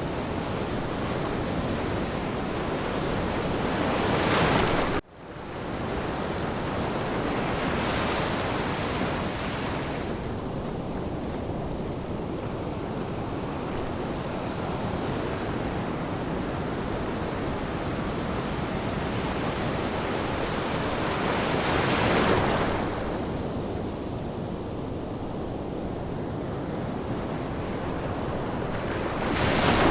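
Ocean surf: a continuous wash of waves on a beach, with breakers swelling up and crashing several times, loudest near the start and at the very end. The sound drops out for an instant about five seconds in.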